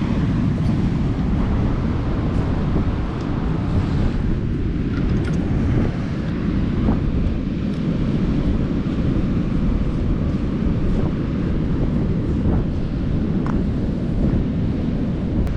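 Strong wind blowing across the microphone: a loud, dense, low rumble that swells and eases unevenly, with a few faint clicks.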